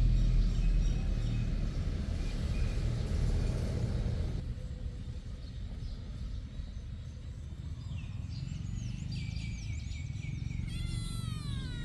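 A low rumbling noise for the first four seconds or so, then, after an abrupt change, a cat mewing: several short high calls, then a longer meow that falls in pitch near the end.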